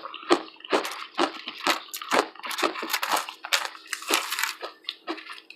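Crunchy chips being chewed close to the microphone: a run of irregular, crackling crunches, about three or four a second.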